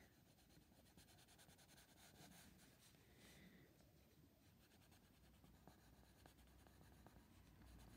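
Faint scratching of a Derwent Coloursoft coloured pencil shading across paper, with a few light ticks in the second half.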